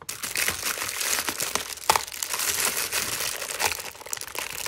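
Clear plastic wrap crinkling and crackling continuously as hands grip and work it around a toy ball, with a few sharper cracks.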